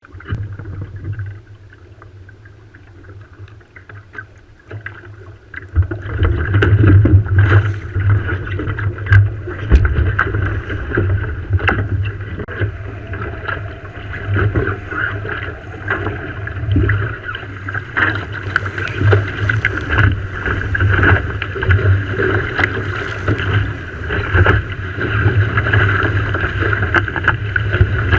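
Wind buffeting the microphone and water rushing and splashing along the hull of a Farr 3.7 sailing skiff under way, quiet at first and much louder from about six seconds in.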